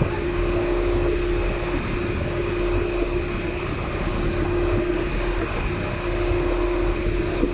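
Motorized outrigger boat's engine running steadily under way: a constant drone with a steady hum that holds one pitch throughout.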